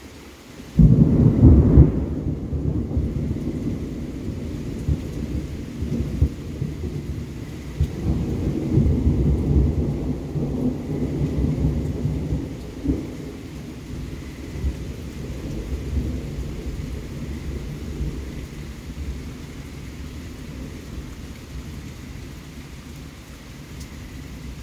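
Thunder: a sudden loud clap about a second in, followed by a long low rumbling that swells again midway and slowly dies away.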